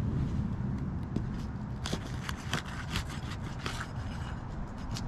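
Asphalt shingle seal strips crackling and popping as a roof snake pries under the shingle and breaks the seals, the snaps coming thick and fast from about two seconds in, over a steady low rumble.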